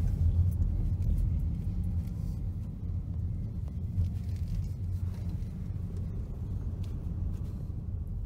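Car driving slowly along a dirt and gravel road: a low, steady rumble of engine and tyres.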